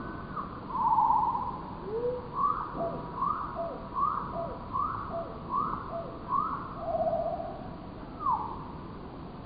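A bird calling: a run of six short rising-then-falling notes about three-quarters of a second apart, with longer, rougher notes before and after the run and a single falling note near the end.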